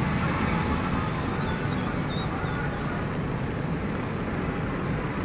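Steady road traffic noise, an even rush with no distinct events.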